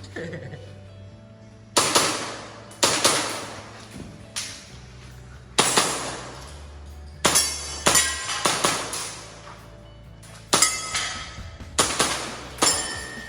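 Airsoft pistol shots with BBs striking ringing steel targets: about ten sharp cracks, roughly one a second, each leaving a short metallic ring. Background music plays underneath.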